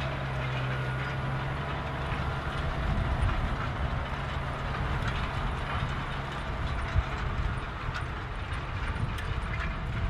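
Large farm tractor's diesel engine pulling a tine cultivator through the soil under load, a steady hum that turns into a rougher low rumble with light rattling from the implement as it goes by. One sharp knock about seven seconds in.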